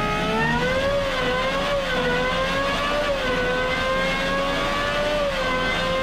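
Gordon Murray Automotive T.50's 3.9-litre naturally aspirated Cosworth V12 running on a dynamometer, holding fairly steady revs with small rises and dips in pitch.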